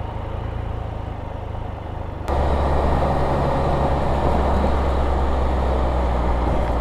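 Can-Am Spyder RT three-wheeler running on the road, a steady low engine drone with road noise; a little over two seconds in, the sound jumps suddenly louder and stays there.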